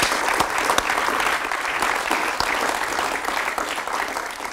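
Audience applauding, a dense clatter of many hands that slowly fades toward the end.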